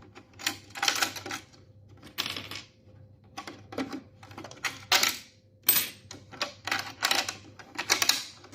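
Sewing machine presser feet clicking and rattling against each other as they are picked through in their storage case: a string of irregular sharp clicks and short rattles.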